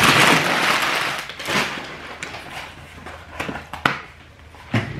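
Brown paper fast-food bag rustling and crinkling as it is handled, loudest in the first second, then softer scattered crackles and taps.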